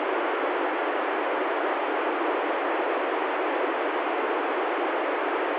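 Steady FM receiver hiss from an ICOM ID-51 handheld transceiver tuned to the ISS downlink on 145.800 MHz: the open squelch passes plain static because the station's signal is off the air between answers.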